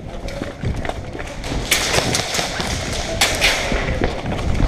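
Thumps and knocks from an airsoft player moving fast with the camera and gear, with several sharp clacks about two and three seconds in.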